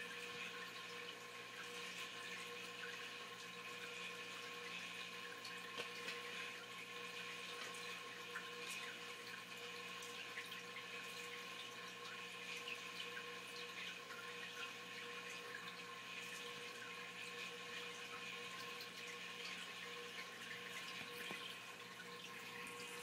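Faint steady hum with a running, water-like hiss and scattered small ticks.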